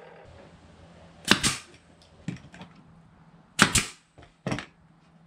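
Pneumatic nail gun from a Porter-Cable compressor/nailer kit firing nails into a plywood drawer box as it is assembled: a few sharp shots spread over several seconds, with two or three quieter ones between them.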